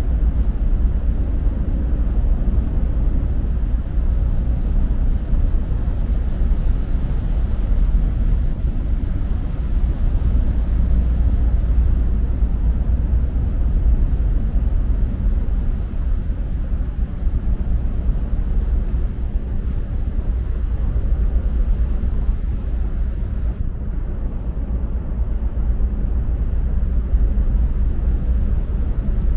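Steady low rumble aboard the car ferry MV Armorique as she comes into port: the ship's engines and machinery running. A fainter hiss above the rumble thins out about three-quarters of the way through.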